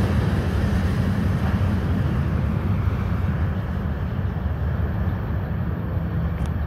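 Freight train cars rolling away on the rails, a steady low rumble that slowly fades as the train recedes, its higher part thinning out about four seconds in.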